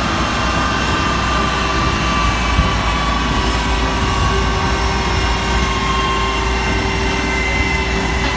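Steady jet aircraft engine noise: a loud, even rush with a thin whine that drifts slowly lower in pitch.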